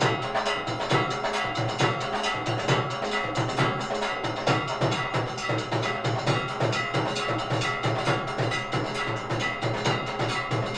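Temple aarti percussion: ringing bells over drums beaten in a steady, continuous rhythm.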